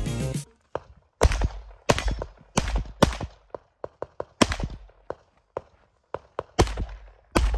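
Pistol shots fired by a competitor running a practical-shooting stage: about seven loud cracks at an uneven pace, some paired and some with pauses between, with fainter cracks in between. Background music cuts off about half a second in.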